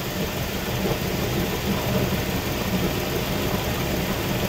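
1999 Chevrolet Suburban's 5.7-litre V8 idling steadily while its power steering system is being bled of air after a steering gearbox swap.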